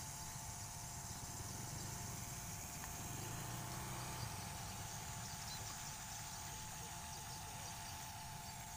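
Steady outdoor ambience: insects chirring in an even, high-pitched drone, over a steady hum and a low rumble.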